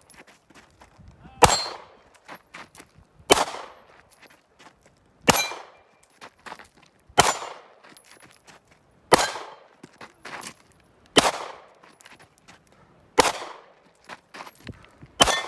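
Gunshots fired at a slow, even pace, about one every two seconds, eight in all, each with a long fading echo, and faint clicks between them.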